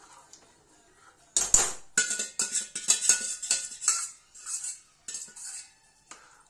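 Steel ladle knocking and scraping around the inside of a steel bowl: a loud knock about a second and a half in, then a quick run of metallic clinks with the bowl ringing under them.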